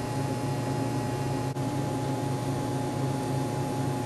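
Arc welding on steel: a steady hiss over a low machine hum, with one brief drop about a second and a half in.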